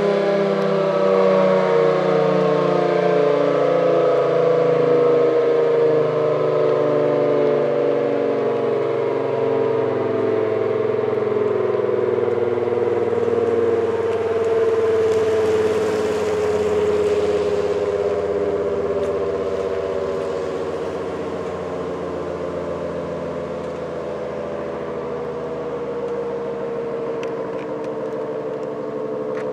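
ACA Allertor 125 rotating electromechanical siren with a 10/12-port rotor, sounding its two-note chord as it winds down at the end of a full alert. All the notes sink slowly in pitch and the sound fades as the rotor coasts down.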